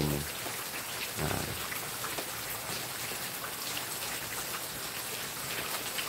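Steady patter of rain, a dense even crackle of drops.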